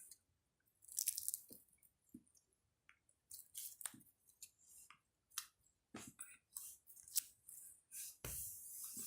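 Slime being squished and stretched by hand: faint, irregular sticky squelches and crackles, some with a soft low thump.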